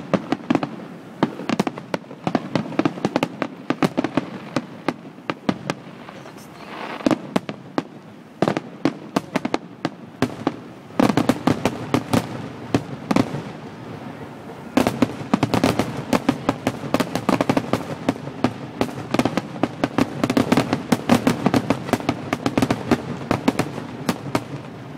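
Fireworks display: a continuous run of sharp bangs and crackles, thickening into dense rapid volleys about eleven seconds in and again from about fifteen seconds to near the end.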